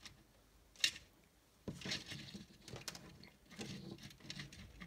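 Faint handling noises of a hand working a length of wire and a resistor on a cutting mat: one sharp small click about a second in, then scattered light rustling and scraping.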